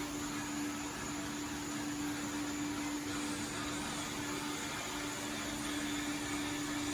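Steady machine hum over a hiss, with one constant low tone held throughout.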